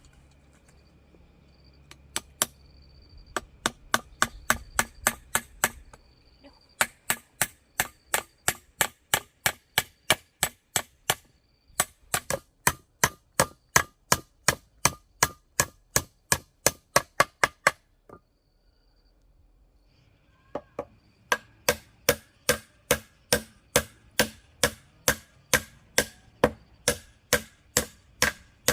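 Runs of sharp, evenly spaced striking blows, about three a second, like a hand tool hitting wood, broken by short pauses.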